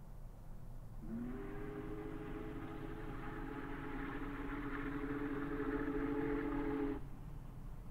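Union Pacific steam locomotive whistle sounding one long chime blast of several tones at once. It starts about a second in, bends up slightly in pitch as it opens, and cuts off sharply near the end.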